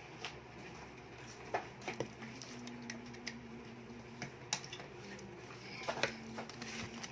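Scattered light clicks and taps of small objects being handled, over a faint steady hum.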